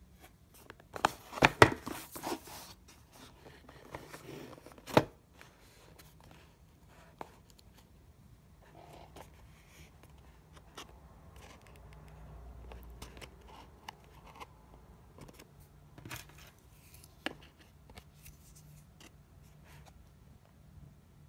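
A cardboard product box being handled and turned over on a wooden tabletop: scrapes, rubs and knocks. There is a cluster of loud ones in the first few seconds and another sharp knock about five seconds in, then only occasional faint taps and rubbing.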